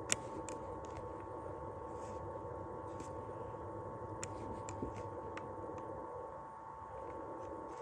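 Quiet background with a faint steady whine of two close tones and a few light, sharp clicks scattered through it.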